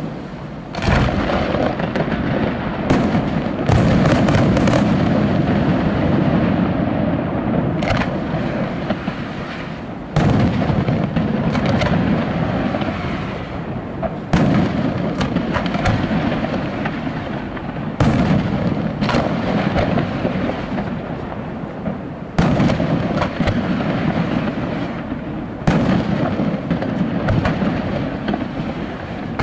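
Aerial firework shells bursting one after another, a heavy bang about every three or four seconds, each followed by a low rumble that slowly dies away. About four seconds in, a quick string of sharp cracks.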